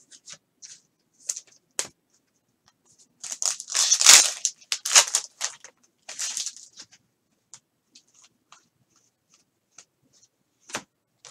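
Foil wrapper of a 2020 Contenders football card pack being torn open and crinkled, with a loud ripping rush about four seconds in and a shorter one about six seconds in. Light clicks and rustles of the cards being handled and flipped come before and after.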